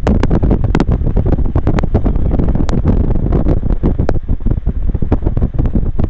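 Wind buffeting the microphone of a camera held out of a moving vehicle: a loud, heavy low rumble with frequent sharp crackling pops.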